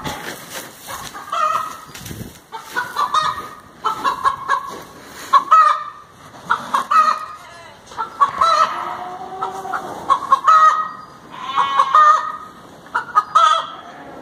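Chickens clucking over and over in short, repeated calls, with a longer drawn-out call from a rooster about nine seconds in.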